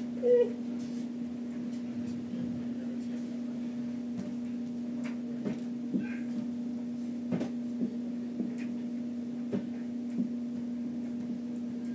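Steady low electrical hum, with faint scattered knocks and bumps of a person shifting on a carpeted floor and an exercise ball.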